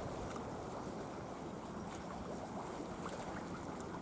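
Harbour seawater lapping and sloshing against the concrete quay and pier pillars, a steady low wash with light wind on the microphone.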